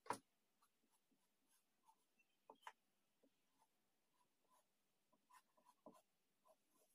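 Tailor's chalk scratching faintly on cotton blouse fabric in short, uneven strokes as it traces around a pattern piece, with one sharp tap right at the start.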